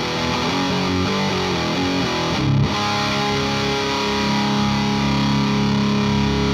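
Distorted electric guitar with Mojo Tone Blackmagic humbucking pickups playing through an amp: a few quick changing notes, then a chord struck about two and a half seconds in and left ringing.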